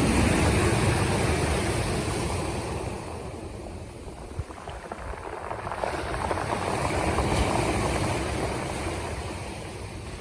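Black Sea waves washing in on the shore, two swells of surf that build and fade, with wind rumbling on the microphone.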